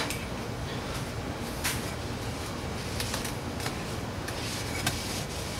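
Faint, scattered clicks and light knocks from metal engine parts being handled, over a steady low hum.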